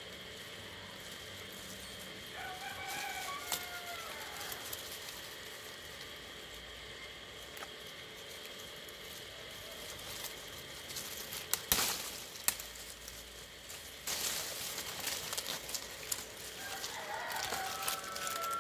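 A rooster crowing twice, once about two and a half seconds in and again near the end. Between the crows come two sharp snips of pruning shears cutting a rambutan bunch from the tree, followed by leaves rustling.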